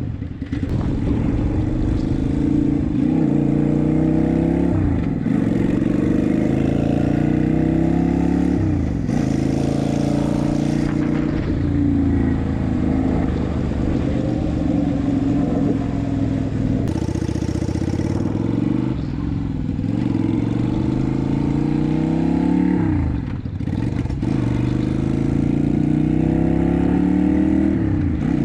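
Yamaha Virago 250's air-cooled V-twin with an aftermarket exhaust, accelerating through the gears. The engine note climbs and drops sharply at each upshift, several times over. Gusts of wind noise hit the microphone now and then.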